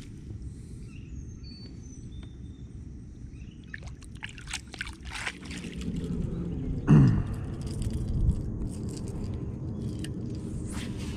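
Fishing rod swished through the air in a cast about seven seconds in, a short loud sweep falling in pitch, after clicks and knocks of handling the rod and kayak gear. Faint bird chirps early on over a low steady rumble.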